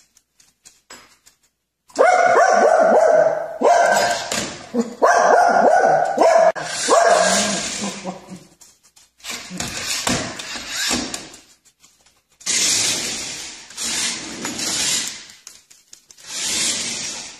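A dog barking in loud bouts with short pauses, starting about two seconds in.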